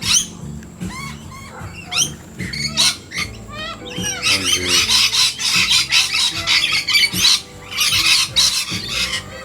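A flock of wild birds, parrots among them, squawking and calling over one another. The calls thicken into a dense chorus about four seconds in and thin out near the end.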